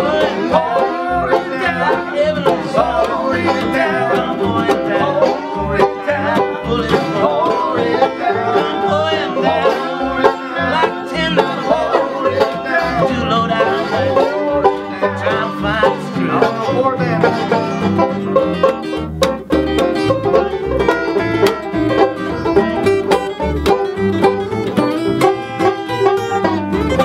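Acoustic string band playing an instrumental break with no singing: a banjo picking over a strummed acoustic guitar and a plucked upright bass, in a country-bluegrass style.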